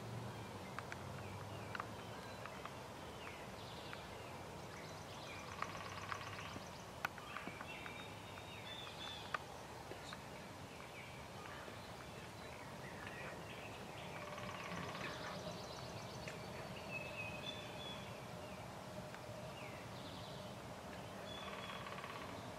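Faint outdoor ambience at a field edge: scattered songbird chirps and trills, with wild turkeys calling now and then.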